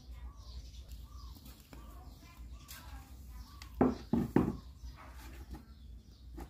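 Repeated faint bird-like chirping calls over a low steady hum, with three short loud sounds in quick succession about four seconds in.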